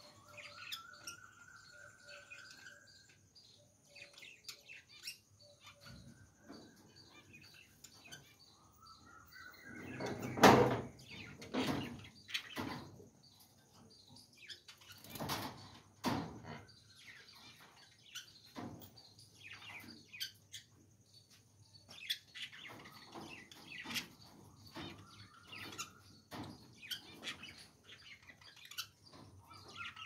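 Caged budgerigars chattering and chirping, with short warbles and rising whistles. A couple of louder scuffling noises come about ten and fifteen seconds in.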